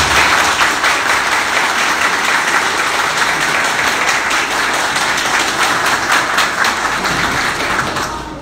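Audience applauding: dense hand-clapping that holds steady and dies away near the end.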